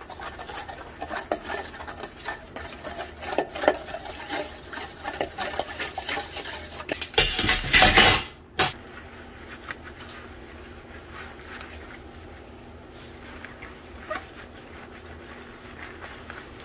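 Stainless-steel kitchen utensils being handled, clinking and clattering against each other and against dishes. The clinks come quickly at first, with one loud clatter about seven seconds in. After that there are only a few faint clinks.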